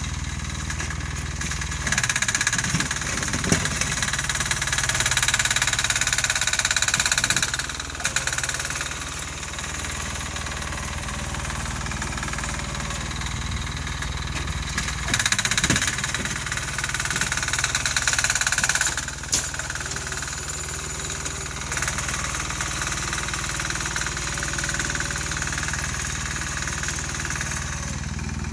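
Sears garden tractor's 6 hp single-cylinder air-cooled diesel engine running steadily while plowing snow, growing louder twice for several seconds at a time.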